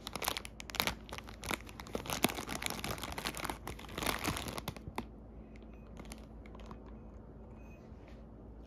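Clear plastic food bag crinkling and rustling as it is pulled open and handled, densely crackling for about the first five seconds, then dying down to a few faint rustles.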